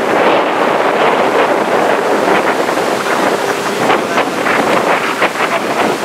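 Strong gale-force wind blowing across the microphone: loud, continuous wind noise, with sharper gusty buffets in the second half.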